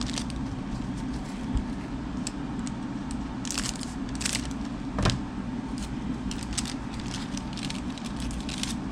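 Trading-card pack and cards being handled: scattered crinkling ticks, with a soft thump about a second and a half in and a louder one about five seconds in, over a steady low background hum.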